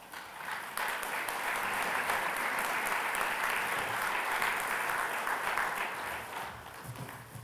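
Audience applauding, a steady clapping that builds about a second in and dies away near the end.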